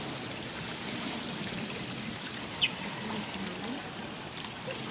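Steady rush and trickle of running water at the walrus pool. About halfway through, a single brief high squeak stands out as the loudest sound.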